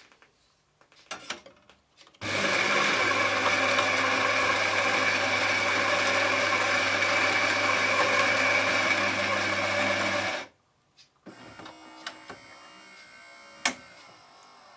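Saeco Syntia espresso machine's built-in coffee grinder running: a loud, steady grinding whir with a low hum for about eight seconds, then cutting off abruptly. A quieter mechanical hum from the machine follows, with one sharp click.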